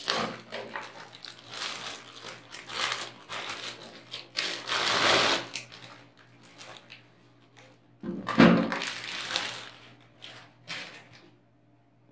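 Clear plastic wrapping crinkling and rustling as it is pulled off a 12 V battery charger, with a heavy thud about eight seconds in as the charger is set down on a wooden table.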